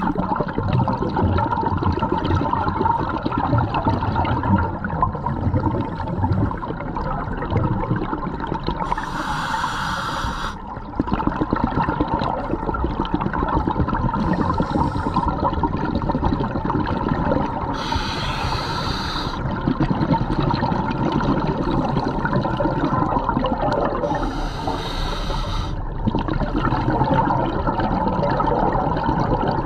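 Scuba breathing through a regulator underwater: a continuous bubbling and gurgling, broken four times, a few seconds apart, by a brief higher hiss.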